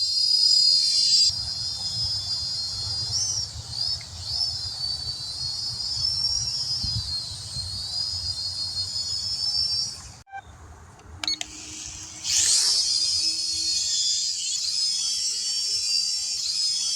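Syma X440 toy quadcopter's motors and propellers whining at a high pitch that wavers up and down as it flies. The whine drops out briefly about ten seconds in and comes back with a sharp rise in pitch soon after.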